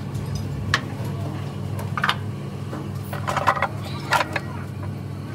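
Scattered metallic clinks and knocks as a truck clutch disc and pressure plate are handled against the flywheel and a wrench works a mounting bolt, over a steady low hum.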